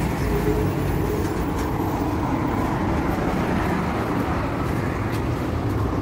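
Steady street traffic noise: the rumble of cars and engines on the road alongside.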